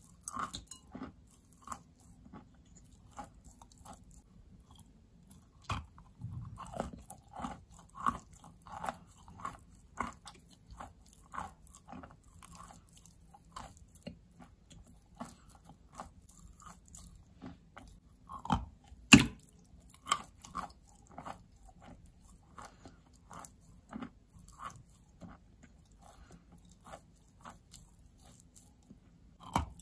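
A person biting and chewing a large lump of soaked white chalk: many short, irregular crunches, with a loud sharp bite about two-thirds of the way through.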